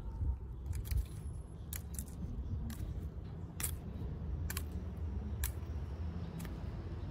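A thin stick struck and flicked across the scales of a dry pine cone used as a found percussion instrument, giving sharp wooden clicks about once a second. A low rumble of street noise runs underneath.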